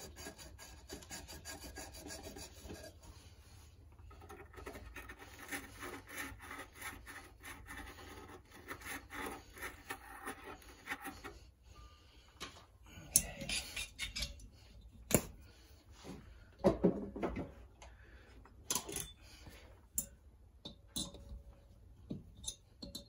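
Refrigerant tubing ends being scrubbed clean for brazing: rubbing and rasping, with several sharp knocks and clicks in the second half.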